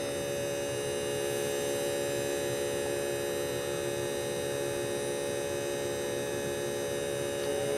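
Budget electronic keyboard playing its organ preset: one steady, unchanging organ tone held throughout.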